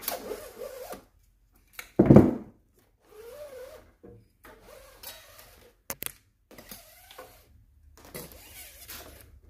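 Leftover flux-core welding wire being pulled out through the welder's gun cable and liner, scraping and squeaking in irregular spurts, some with a wavering pitch. A loud thump comes about two seconds in and a sharp click near six seconds.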